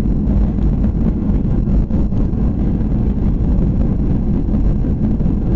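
Boeing 737-800 cabin noise during landing: a loud, steady low rumble of the CFM56-7B engines and airflow heard from inside the cabin.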